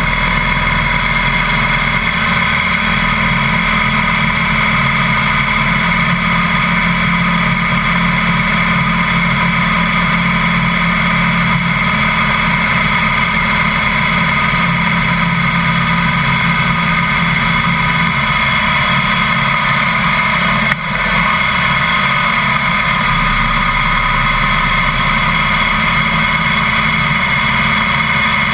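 Harley-Davidson Heritage Softail's V-twin engine running steadily at road speed, mixed with wind and road noise. There is one brief dip in level about two-thirds of the way through.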